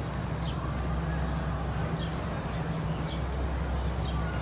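Busy open-air ambience: a steady low hum under a wash of faint distant voices, with a few short high chirps.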